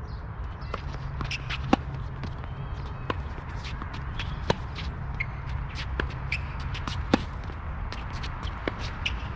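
Tennis rally on a hard court: racquet strings striking the ball six times, about one and a half seconds apart, the near player's shots louder than the far player's, with shoe scuffs on the court between shots over a steady low background rumble.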